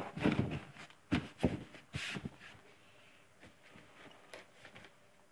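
Handling noise: a few scattered knocks and short rustles in the first two and a half seconds, then faint ticks.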